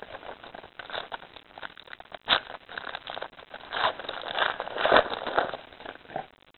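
Trading-card pack wrapper crinkling and rustling as it is torn open and handled, in irregular bursts.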